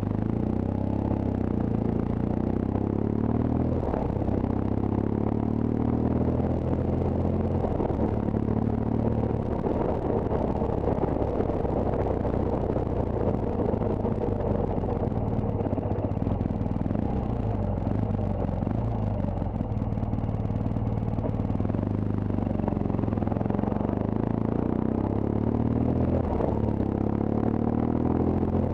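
Motorcycle engine running while riding at low road speed, heard from on the bike; its pitch rises and falls a few times as the throttle changes.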